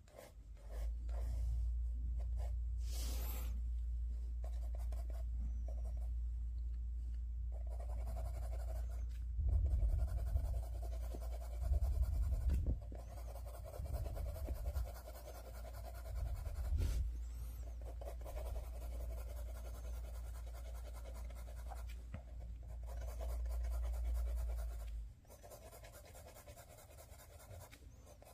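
Coloured pencil shading on drawing paper: continuous scratching, rubbing strokes. Under it runs a low rumble that stops suddenly near the end.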